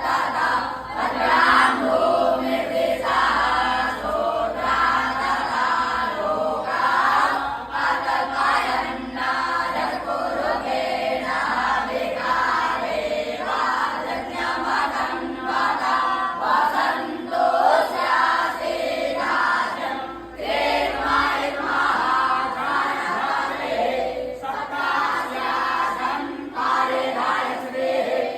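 A group of young Vedic students chanting a Sanskrit hymn together in unison, with a short break about twenty seconds in.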